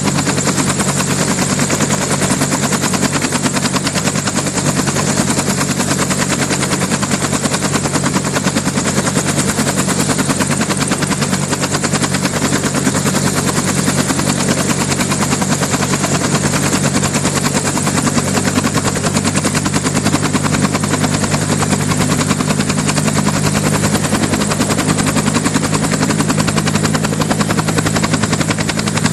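Helicopter running steadily, its rotor blades beating in a fast, even rhythm over a constant engine drone.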